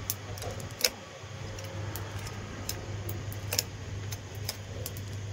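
Sharp, irregular clicks and scrapes of stones being picked out of a truck tyre's tread grooves by hand, over a steady low hum. The stones lodged in the tread come from a gravel road under construction.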